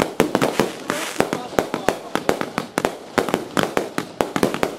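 A consumer fireworks finale, cakes and mortar racks firing in a rapid barrage of sharp reports, about five a second, of launches and aerial bursts.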